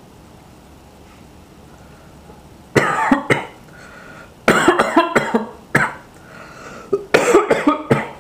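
A man coughing in loud fits: a short burst of coughs about three seconds in, a longer run at four and a half seconds, one cough near six seconds, and another run of several coughs near the end.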